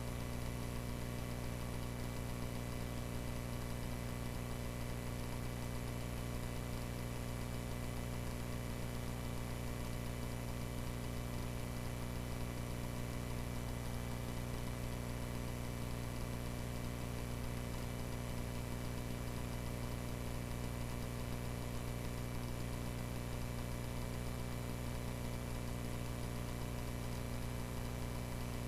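Cessna 140A's single piston engine and propeller droning steadily in flight, heard from the cockpit, with an even, unchanging pitch.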